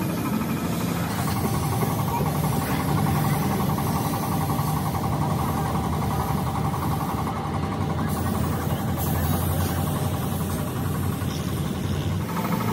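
An engine idling steadily at an even, unchanging speed.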